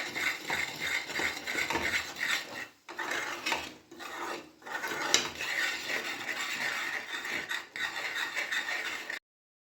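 A utensil stirring and scraping thick melted jaggery and ginger paste around a pan, in repeated rasping strokes with a couple of short pauses; the sound stops abruptly near the end.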